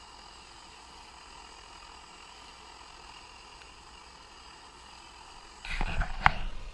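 Optimus Hunter camping stove burning under a pot of water at a rolling boil: a steady hiss. Near the end the metal pot lid is lifted off with a short clatter and one sharp metallic clink.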